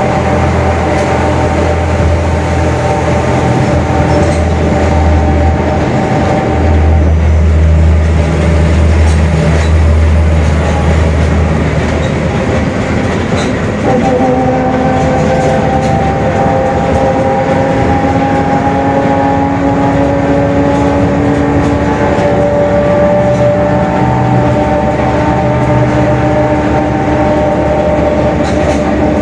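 Mercedes-Benz OF-1721 bus under way, its diesel engine running with a growling, whining drone from the differential, the sign of a worn differential. The whine fades out early on and comes back about halfway, rising slowly in pitch as the bus gathers speed.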